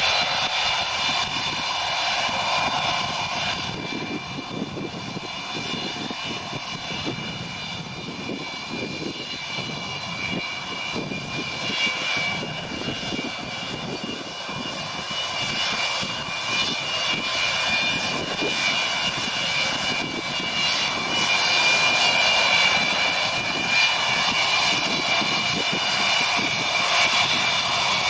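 Antonov An-124-100's four D-18T turbofans running at low power as the freighter taxis, a steady high-pitched whine over a rumble. The sound grows louder in the last third as the aircraft turns toward the listener.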